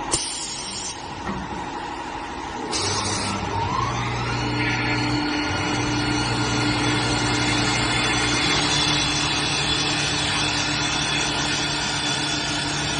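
CNC wood lathe running. About three seconds in there is a brief hiss, then a motor spins up with a rising whine and settles into a steady hum and whine.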